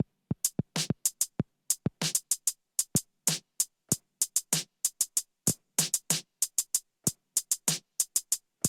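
Drum machine playing a dry, sparse beat: short separate hits, some deep and some bright, in a steady groove.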